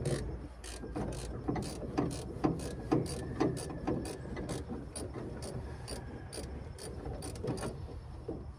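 Hand ratchet clicking in repeated strokes, a few clicks a second, as the mounting bolts of an old brake master cylinder are worked loose. The clicking thins out near the end.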